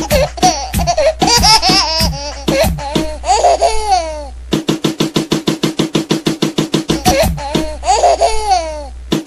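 High-pitched laughter over background music with a fast, even beat. The laughing fills the first four seconds or so, stops while only the beat plays, and comes back briefly about seven seconds in.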